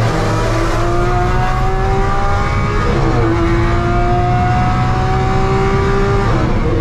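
Lamborghini Aventador SV's V12 with a full catless exhaust accelerating hard, heard from inside the cabin: the engine note climbs steadily, drops at an upshift about three seconds in, then climbs again to another upshift near the end.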